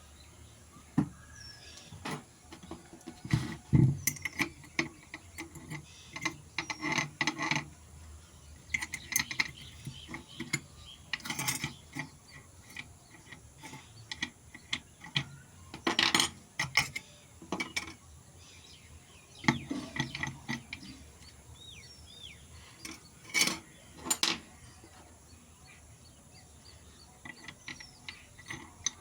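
Irregular clicks, taps and clatter from handling an angle grinder and a metal polishing disc, the loudest knocks about 3.5 s, 16 s and 23 s in; the grinder is not running.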